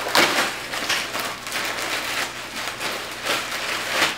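Continuous crinkling and rustling of packaging and fabric as a pair of cotton twill shorts is unpacked and handled.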